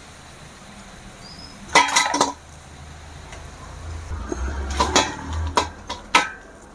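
Metal kitchenware clinking and clattering: a wire skimmer knocking against steel cookware as fried litti are tipped into a stainless steel bowl. A quick cluster of knocks comes about two seconds in, then several separate clinks a couple of seconds later.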